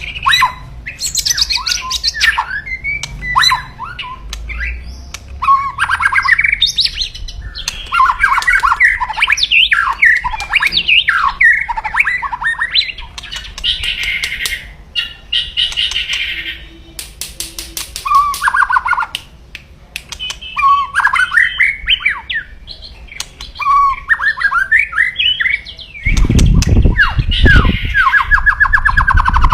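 White-rumped shama singing aggressively: a dense, loud run of varied chirps, trills and harsh crackling rattles, the 'kretekan' call of an agitated male. Several low thumps come in near the end.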